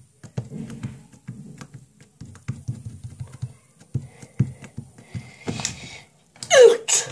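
Fingers poking and pressing slime on a wooden table: a run of soft taps and thuds. Near the end comes a short, louder sound that sweeps in pitch.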